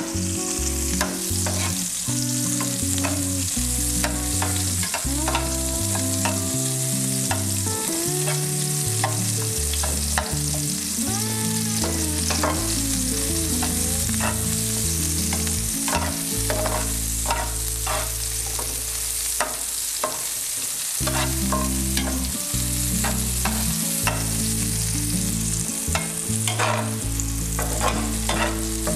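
Sliced shallots sizzling in hot oil in a nonstick wok, with a metal spatula scraping and tapping the pan again and again as they are stirred and fried until fragrant.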